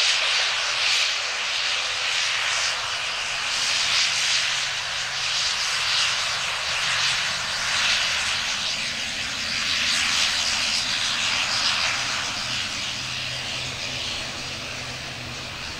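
ATR 72-600 turboprop's twin Pratt & Whitney PW127 engines and propellers running as the airliner rolls along the runway: a steady low drone under a loud hiss that swells and fades, easing off near the end.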